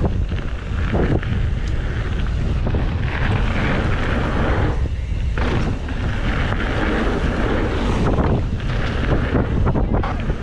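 Wind buffeting the microphone of a camera on a moving mountain bike: a loud, steady rumble of rushing air.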